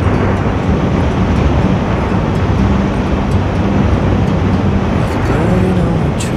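Motorcycle ride: the engine runs steadily under a continuous rush of wind and road noise, with a short sharp click near the end.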